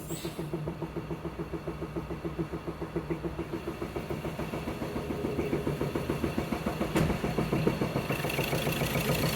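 2016 Ford Transit diesel engine running with a rhythmic knock, about five knocks a second, that grows quicker and louder past halfway, with one sharp click about seven seconds in. The knock comes from damaged rocker arms.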